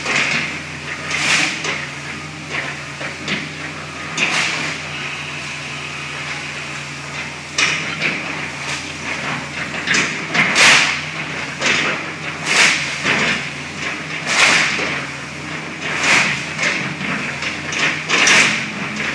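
Hydraulic excavator with a demolition clamp bucket working a pile of mixed trash: the engine runs steadily under repeated, irregular crunches and crashes of debris being grabbed and dropped, inside a large steel building.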